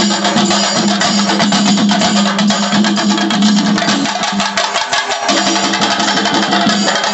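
Singarimelam ensemble playing: chenda drums beat fast, dense strokes and ilathalam hand cymbals ring constantly, over a steady low held tone that drops out briefly about five seconds in.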